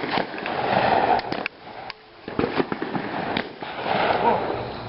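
Rustling and handling noise with several light clicks and knocks.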